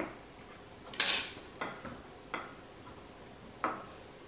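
Handling noise as a rubber boot and a wooden board are shifted about on a stone countertop: five short knocks and scuffs, the loudest a brief brushing scuff about a second in.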